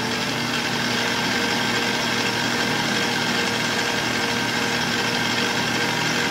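Electric stand mixer running steadily at medium speed, its whisk beating egg whites and sugar into meringue in a stainless steel bowl.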